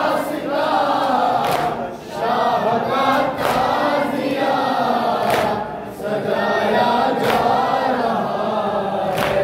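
A noha, a Shia lament, sung by a lead reciter and a crowd of male mourners chanting in unison. Chest-beating (matam) slaps land in time about every two seconds, five in all.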